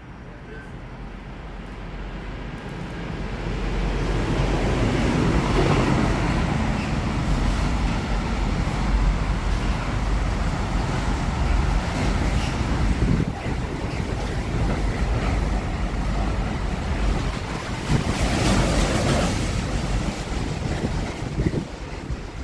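Container freight train passing close by: a steady rumble of wagons running over the rails. It builds over the first few seconds as the train arrives and drops away near the end as the last wagons pass.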